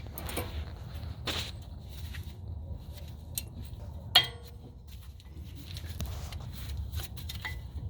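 Brake pad being fitted into the caliper bracket's metal clips: a few light clicks and scrapes, with one sharp metallic clink about four seconds in. A steady low hum lies underneath.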